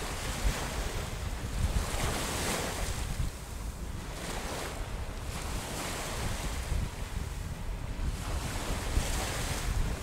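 Ocean surf washing onto a beach. The hiss of breaking waves swells and fades every few seconds over a constant low rumble.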